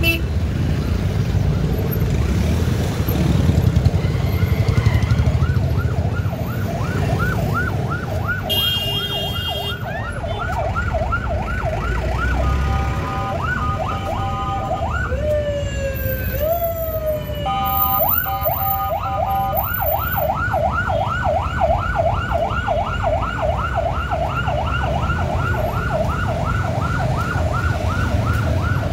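Emergency vehicle siren sounding a fast yelp, rising and falling about three times a second, starting a few seconds in. Midway it changes pattern for several seconds, with a few slower sweeps, then returns to the fast yelp. A steady low rumble runs underneath.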